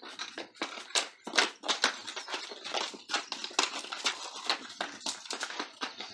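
Saddled mule's hooves stepping and shuffling on hard dirt ground, a run of irregular knocks several a second as it moves about.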